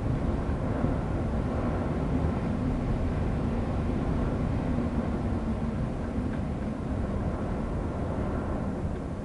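Wind blowing with rain, a steady low rushing noise that does not let up.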